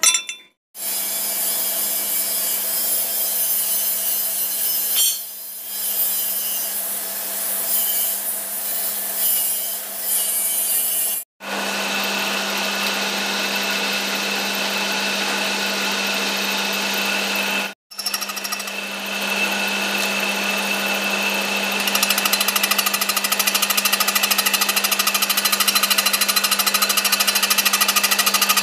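Milling machine face-milling a steel plate with an insert face mill: a steady motor hum under the rapid, chattering cut of the inserts on the metal. It breaks off suddenly twice, and after about two thirds of the way through it grows louder and more evenly rapid.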